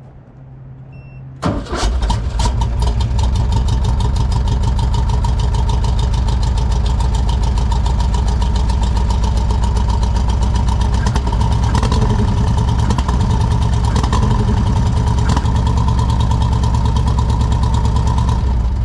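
Twin-carburetor car engine starting abruptly about a second and a half in, running with a few brief rises in pitch partway through, then shut off at the end. It is a test run during carburetor tuning, with the accelerator pumps being adjusted.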